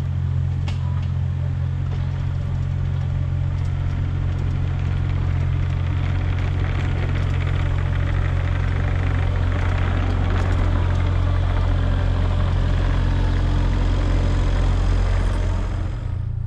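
Compact excavator's engine running steadily as the machine travels on its tracks, growing slightly louder as it comes closer.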